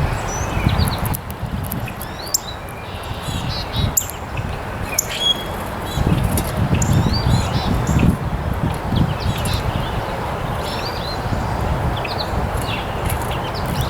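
Several small birds chirping and calling: many short, high chirps and quick slurred notes scattered throughout, over a steady low rumble.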